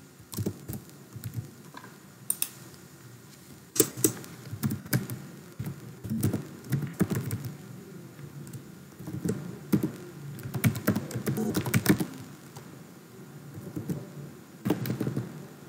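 Typing on a computer keyboard: irregular keystrokes in short runs separated by brief pauses.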